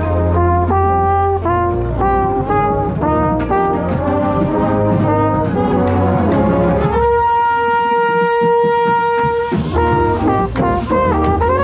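Drum corps brass line playing, with a mellophone loud and close: a run of short moving notes, then one long held note from about seven seconds in to nine and a half, after which the moving notes return.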